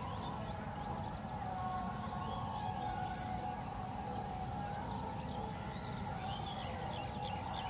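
Open-air rural ambience: short bird chirps over a steady high drone and a low rumble of wind, with a held, slightly wavering tone in the middle range.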